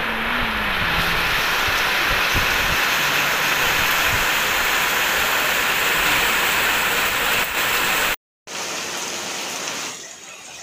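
Heavy rain pouring onto a paved road, a steady dense hiss with a low rumble beneath it. The sound cuts out for a moment about eight seconds in, then returns softer near the end.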